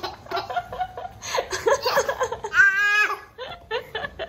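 Laughter, a baby's giggling among it, in short bursts, with one drawn-out high-pitched laugh about two and a half seconds in.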